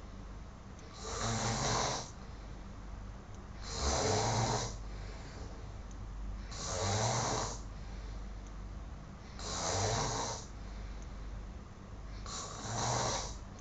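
A man snoring in his sleep: five long snores, one about every three seconds.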